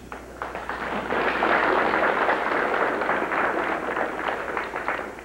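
Audience applauding: dense clapping that swells within the first second and dies away near the end.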